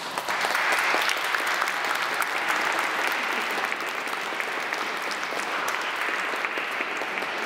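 A congregation applauding: many people clapping together, breaking out at the start and easing a little after about four seconds.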